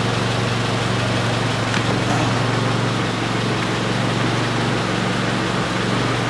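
Honda EP3 Civic engine idling steadily with a constant low hum.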